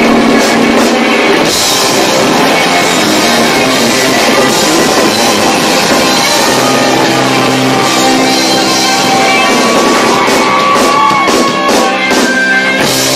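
A live rock band playing loud, with electric guitars, bass and a drum kit, recorded through an overloaded camcorder microphone, so the sound is distorted.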